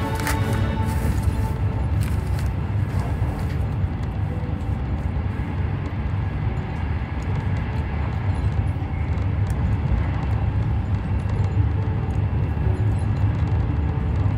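Steady low rumble and hiss of a moving train, heard from inside the carriage.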